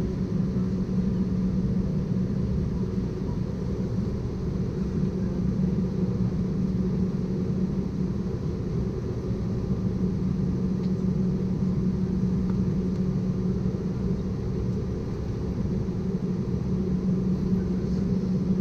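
Steady cabin drone of an Embraer ERJ-190 standing on the ground with its General Electric CF34 turbofans at idle: an even low rumble with a constant hum.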